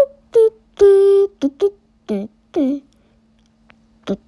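A singing voice makes a quick run of short hummed or sung syllables, several sliding down in pitch, then falls silent until two brief sounds near the end. A faint steady low hum runs underneath.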